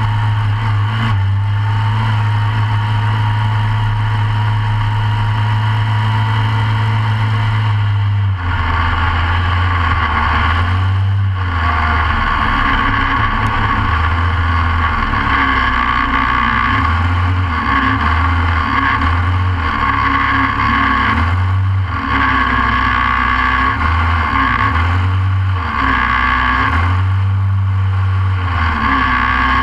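Short course off-road kart's Briggs & Stratton racing engine running close to the camera inside the cage: steady idle at first, then about eight seconds in its speed starts rising and falling over and over as the throttle is worked.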